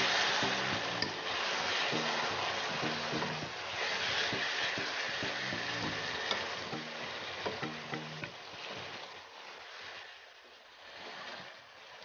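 Pork pieces frying and sizzling in a pan while a wooden spatula stirs and scrapes through them in repeated strokes. The sizzle dies down over the last few seconds.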